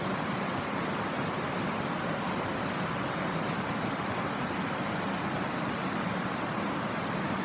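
Shallow river spilling over a low rock ledge in a line of small cascades: a steady, even rush of water.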